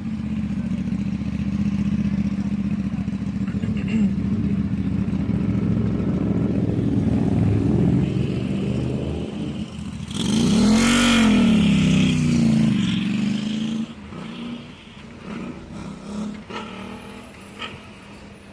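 City street traffic: vehicle engines running steadily close by. About ten seconds in, a louder engine revs up and back down over two seconds or so as a vehicle accelerates past, then the traffic noise drops away sharply.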